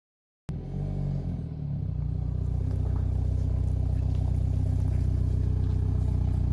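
A motor starts abruptly and runs with a steady, even drone. Its pitch shifts a little in the first second, then holds.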